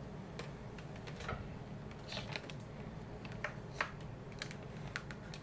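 Small UNI-T digital multimeter and its test leads being handled: scattered light plastic clicks and rustles, about seven in all, over a steady low hum.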